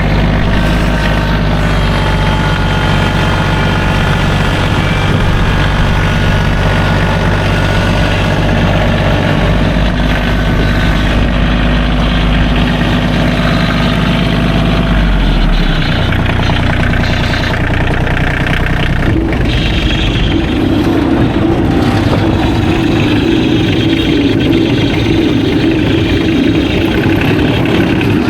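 An engine running steadily. About fifteen seconds in, its low tones drop and change, and from about twenty seconds a steadier droning hum takes over.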